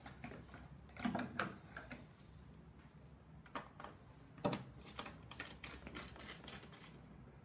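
Scattered clicks and knocks of lipo laser pad cable plugs being pushed into the sockets on the back panel of a cavitation/lipo laser beauty machine. There are a few louder knocks about a second in and again past the middle, then a quick run of light clicks.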